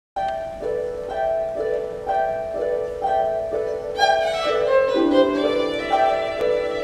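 String orchestra playing bowed notes, opening with a two-note figure repeated about twice a second; about four seconds in more parts enter with a falling line, and lower strings join beneath a second later.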